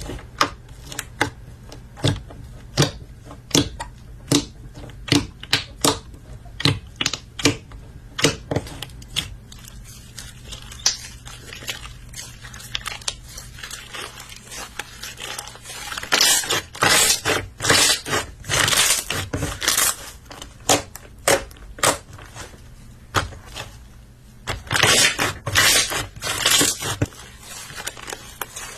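Slime being squeezed and pressed by hand, giving sharp pops about twice a second at first, then denser bursts of crackling a little past the middle and again near the end, over a faint low hum.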